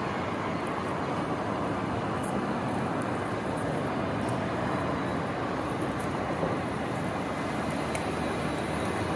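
Steady city street traffic noise, an even hum of passing road vehicles.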